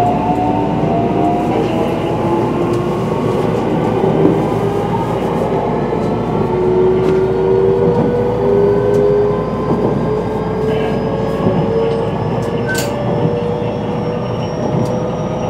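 JR West 223 series 5000-subseries electric train with a Mitsubishi IGBT-VVVF inverter under way. The motor whine climbs slowly and steadily in pitch as the train gathers speed, over the rumble of wheels on rail, with a few light clicks.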